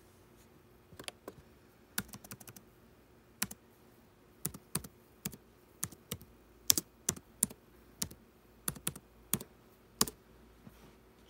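Typing on an HP laptop keyboard: irregular sharp key clicks, some in quick runs, stopping near the end.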